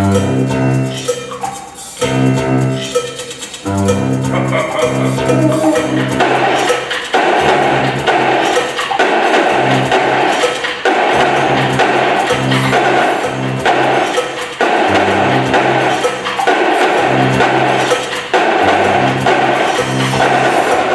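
A drum line's marching drums playing a percussion piece over a backing track of repeating pitched notes. Sharp stick clicks go over the backing at first, and about six seconds in the drums come in with dense, continuous drumming.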